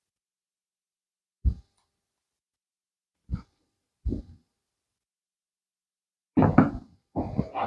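Three short dull knocks a second or two apart, then two longer bouts of bumping and rustling near the end.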